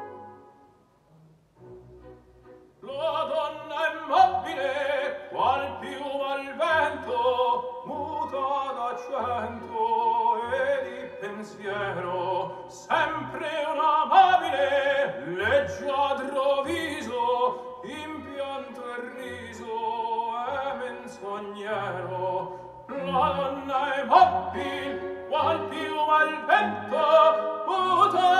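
Operatic singing with orchestra played back through a home-built KT120 valve amplifier and Sonus Faber Toy Tower floor-standing speakers, heard in the room. The music comes in about three seconds in, after a short near-silent gap.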